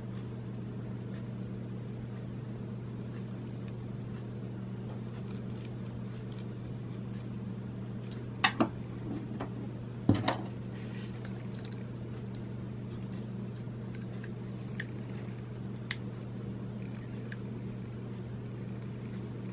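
Small clicks and taps of a compact digital camera's plastic and metal parts being handled and fitted back together, the two loudest about eight and ten seconds in, with a few fainter ticks later. Under them runs a steady low hum.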